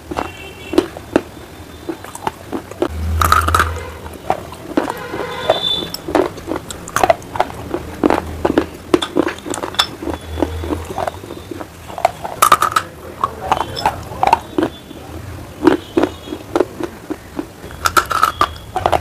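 Close-up chewing of brittle clay and stone pieces: many sharp crunches and bites, several a second, with wet mouth sounds between them.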